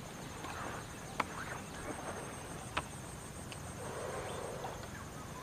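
Quiet forest ambience: a steady high-pitched insect drone, with a few sharp clicks and a soft rustle about four seconds in.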